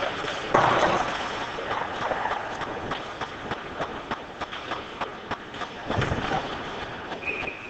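Ice hockey play in an indoor rink: skate blades scraping the ice and sharp clacks of sticks and puck, with louder surges of scraping about half a second in and again around six seconds. A brief high steady tone sounds near the end.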